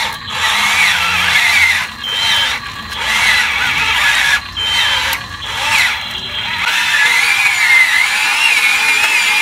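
Small electric motors and plastic gearboxes of toy remote-control trucks whining as they strain to tow trailers loaded with sand. The whine wavers in pitch and cuts out briefly several times, then runs without a break near the end.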